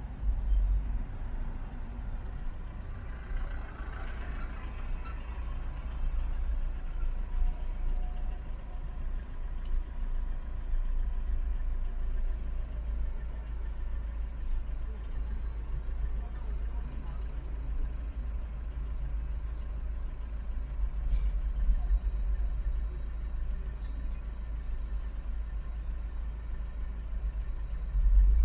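Car driving in city traffic: a steady low rumble of engine and road noise, with two brief high-pitched squeaks in the first few seconds.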